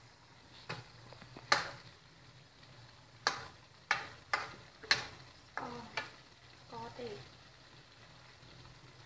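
Metal slotted spatula scraping and clacking against a steel wok, about nine strokes over some seven seconds, as pineapple and beef liver are stir-fried over a faint sizzle; the last two seconds are quieter.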